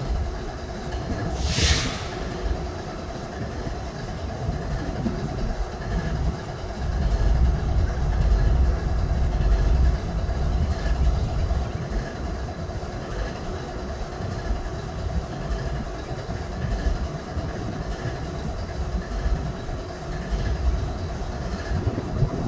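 GE ES40DC diesel-electric locomotive idling, its GEVO-12 V12 diesel running with a steady low rumble and hum. A brief hiss comes about a second and a half in, and the low rumble swells for a few seconds near the middle.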